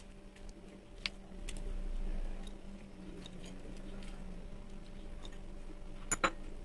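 Scattered light clicks and taps of raw shell-on shrimp being set down on dry glass noodles in a metal pot, with the loudest, a quick double click, about six seconds in. A steady low hum underneath.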